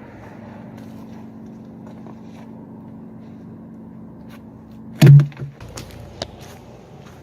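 A steady low hum, then a single loud thump about five seconds in, followed by a few sharp knocks and clicks.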